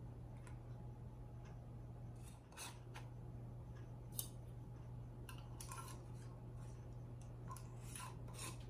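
Metal canning lids set onto glass mason jars and screw bands twisted on: scattered light clicks and metal scraping on glass threads, with one sharp clink about four seconds in. A steady low hum sits underneath.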